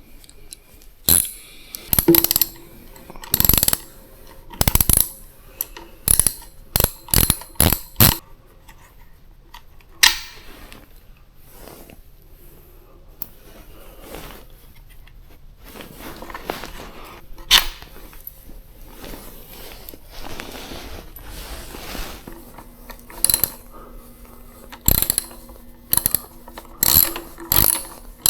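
A hand ratchet clicking in short runs, sharp clicks in clusters with quieter pauses between, as fasteners are worked.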